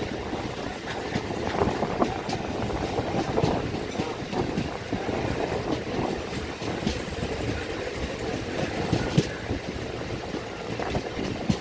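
Chennai suburban electric local train (EMU) running along the line, heard from an open doorway. It makes a steady running rumble with many irregular clicks and knocks from the wheels on the rails.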